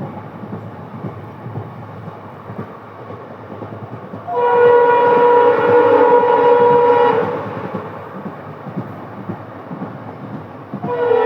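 WDP-4D diesel locomotive's horn sounding a steady multi-note chord for about three seconds, a few seconds in, then starting again near the end. Between the blasts there is train rumble with wheels clicking over rail joints.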